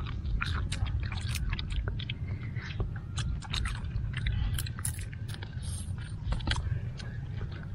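Small crab shells being cracked and picked apart by hand, with chewing: many short, sharp cracks and clicks, irregular and close together, over a steady low rumble.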